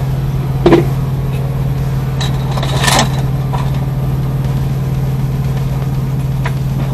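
Steady low hum inside a stopped semi truck's cab, with a light knock about a second in and another about three seconds in.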